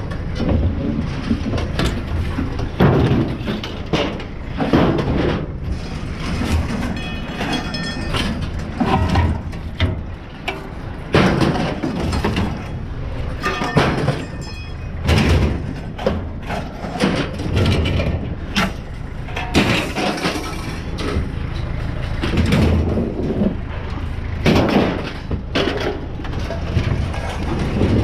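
Light steel scrap ('tin') being thrown off a pickup onto a scrap pile: repeated, irregular clanging and crashing impacts, with a few pieces ringing briefly.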